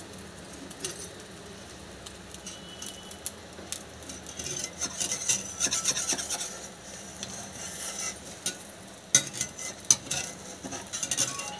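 Spatula scraping and rubbing against the side of a kadai around the edge of an egg and onion omelette, over the sizzle of hot oil. There are a few sharp knocks of the spatula on the pan about nine to ten seconds in.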